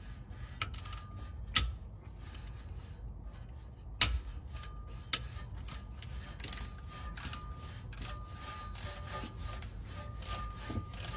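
A T20 Torx driver working a screw loose on the ABS module (EBCM) from under the truck: a run of small metal clicks and scraping. It grows busier about four seconds in, with a few sharper knocks.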